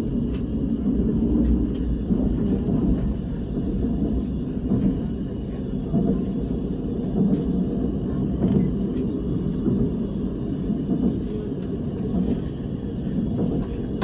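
KTX-Eum train's cabin noise while running: a steady low rumble with a few faint clicks here and there.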